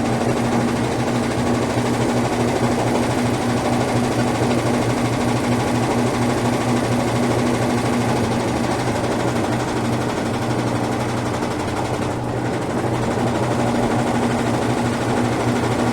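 Brastemp Ative 11 kg BWL11 washing machine spinning its drum to drain the wash water before the rinse: a steady motor hum over a whirring drum, its higher hum tone fading for a few seconds midway and coming back near the end.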